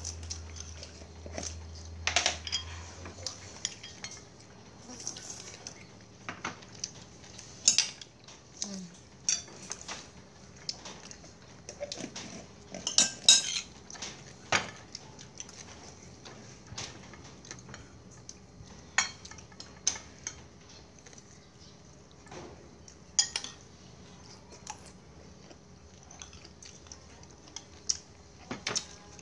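Metal spoons clinking and scraping against ceramic plates and bowls as people eat, in scattered, irregular clinks; the loudest come about a quarter of the way in and near the middle.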